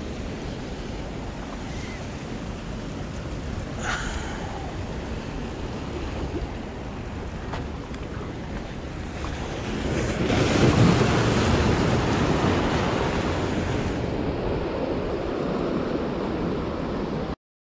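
Sea surf washing against a rock breakwater, with wind buffeting the microphone; the surge swells louder about ten seconds in, then eases.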